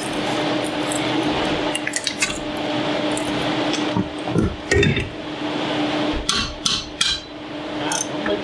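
Metal clinks and knocks from work on the brake and hub parts, several sharp ones about six to seven seconds in, over a steady hiss and faint hum.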